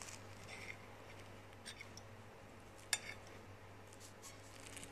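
Metal fork cutting through a syrup-soaked cocoa semolina cake and lightly scraping and tapping a ceramic plate, with one sharper clink of fork on plate about three seconds in.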